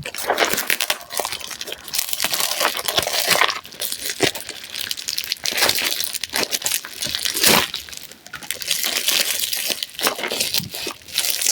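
Parcel packaging crinkling and rustling as it is handled and opened, with many small crackles and clicks.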